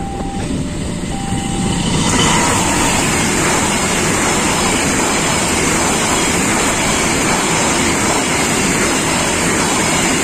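A two-tone beeping alternates high and low, then about two seconds in the KA Brantas passenger train reaches the camera and passes close by. The loud, steady clatter and rumble of its economy coaches' wheels on the rails runs on from there.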